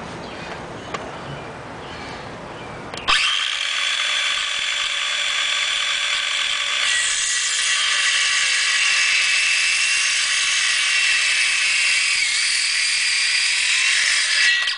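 A Master Mechanic 18-volt cordless circular saw with a 5½-inch blade starts abruptly about three seconds in and cuts through a 2x4 for about eleven seconds. Its high whine drops in pitch partway through as the motor struggles under the load, and it cuts off suddenly near the end.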